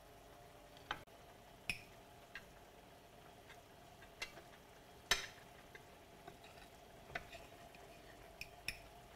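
A utensil stirring a thickening pan sauce of broth with butter and flour in a frying pan, making irregular short clicks and knocks against the pan, the loudest about five seconds in, over a faint steady background.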